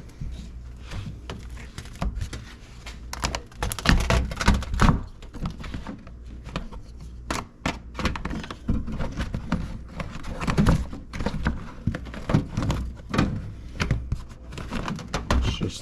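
Irregular knocks, taps and plastic crinkling from hands fitting the plastic vapour barrier back onto a car door's inner panel and feeding wiring through it.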